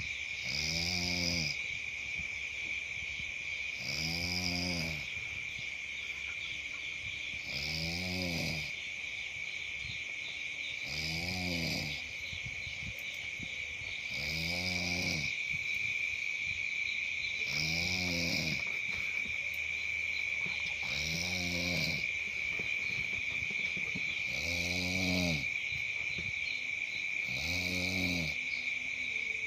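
A person snoring in their sleep with slow, regular breaths, about one snore every three and a half seconds, nine in all. Insects chirr steadily and high-pitched behind it.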